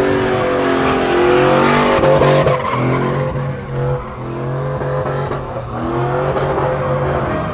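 A car doing a burnout: its engine revs in about three rising-and-falling surges while the tyres spin on the pavement.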